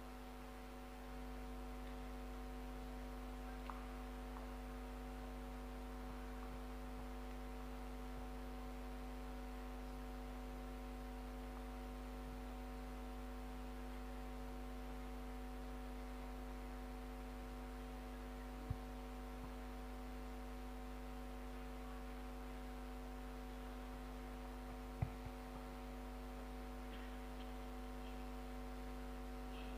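Steady electrical mains hum, a low buzz with several overtones held at one pitch, with two short faint clicks in the second half.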